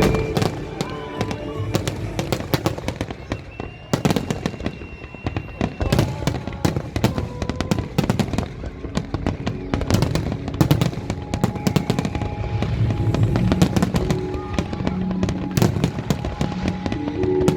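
Fireworks going off in a rapid string of bangs and crackles, over music playing.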